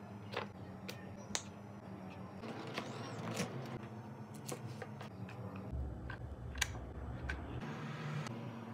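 Corrugated cardboard pieces being handled, folded and set down on a wooden workbench: scattered sharp clicks and light taps over soft rustling. A low hum comes in for about two seconds past the middle.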